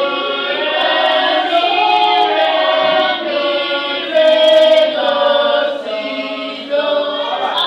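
A class of students singing together as a choir, in long held notes that step from one pitch to the next.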